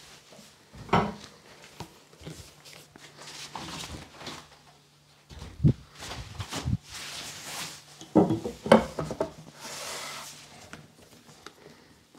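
Handling noises from a barber chair's padded headrest being picked up and fitted to the chair back: irregular knocks and clunks with rubbing and rustling, loudest about a second in and again a little past the middle.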